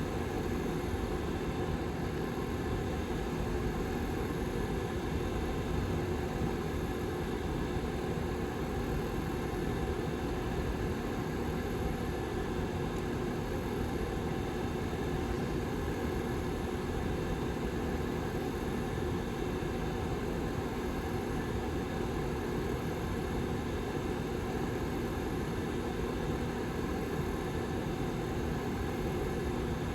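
Lasko Model 755320 tower heater's rear fan running steadily: an even rush of air with a low, steady hum.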